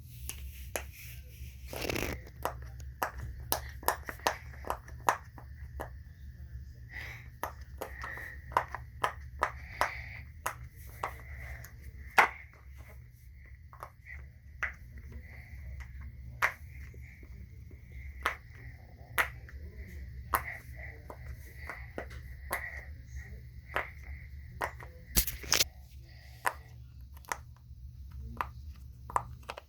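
Silicone pop-it fidget toy bubbles being pressed one after another, each giving a short sharp pop, about two a second at an uneven pace.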